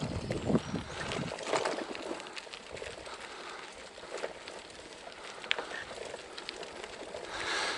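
Bicycle rolling over a rough forest track: tyres crunching on the uneven ground, with irregular clicks and rattles from the bike.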